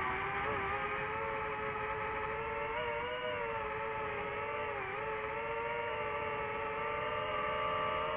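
FPV quadcopter's motors and propellers whining steadily in flight, the pitch shifting with throttle and dipping briefly about five seconds in.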